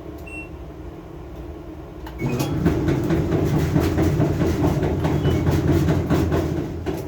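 An LG dryer drum tumbling with a loud, rapid clickety-clack knocking rumble that starts about two seconds in, a sound typical of a worn drum support roller.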